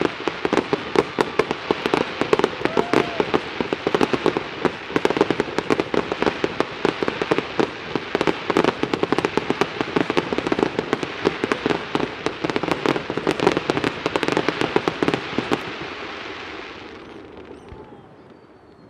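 Fireworks going off in a dense, rapid barrage of pops and crackling, which thins out and fades away about sixteen seconds in.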